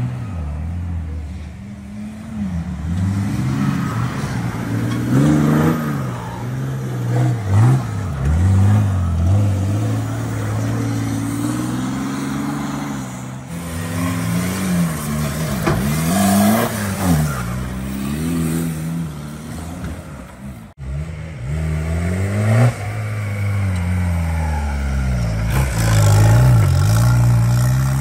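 Off-road 4x4 engine revving up and down over and over as the vehicle works through the course. The sound breaks off for a moment about three-quarters of the way through.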